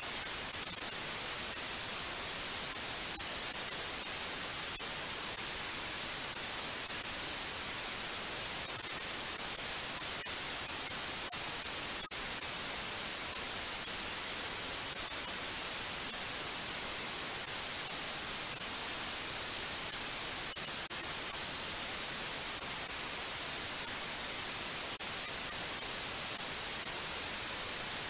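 Steady white noise: an even, unchanging hiss, brightest in the treble.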